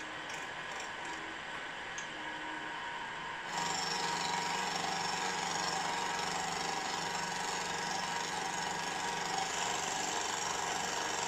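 Milling machine cutting across the side of a steam chest casting with a face mill. The cutting noise is steady and steps up louder about three and a half seconds in, as the cutter takes more of the cut.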